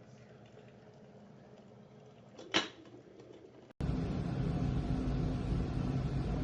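A single sharp click about two and a half seconds in. After an abrupt cut, a glass electric kettle heating water gives a steady rumbling hiss with a low hum.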